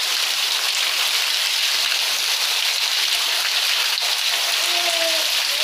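Heavy rain falling in a steady hiss, with runoff pouring from a roof drainpipe and dripping off the roof edges.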